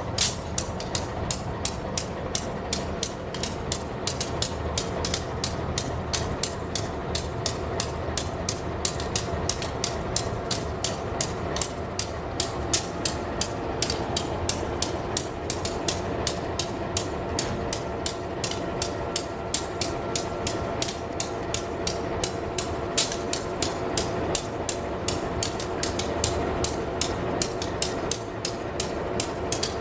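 Long freight train rolling past close by, its wagon wheels clicking rapidly and evenly over the rail joints, several clicks a second, over a steady rumble. Midway through a diesel locomotive passes, adding a steady engine tone.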